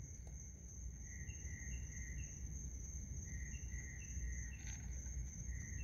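Night insects: a steady, high-pitched cricket trill, with a second call chirping in short runs of three or four notes twice, over a low rumble.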